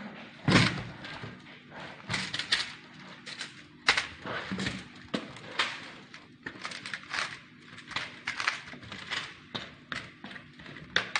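Sliced potatoes and meat tipped and shaken out of a plastic bowl onto a paper- and foil-lined baking tray: irregular soft thuds of food landing, with rustling and crinkling of the paper and foil.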